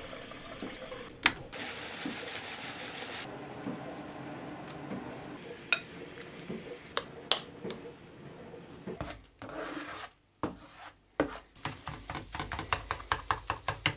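Tap water runs into an electric kettle for the first few seconds. A few clinks and knocks of kitchenware follow. Near the end come quick, repeated scrapes of a utensil against a frying pan as scrambled eggs are stirred.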